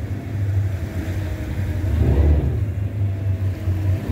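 Gillnet boat's engine running steadily at low speed, a low hum that swells briefly about halfway through.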